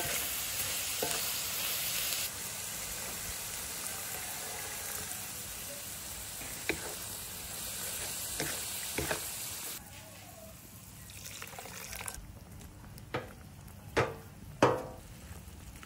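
Food sizzling in a hot pan while it is stirred, a steady hiss that drops away suddenly about ten seconds in. A few sharp knocks follow near the end.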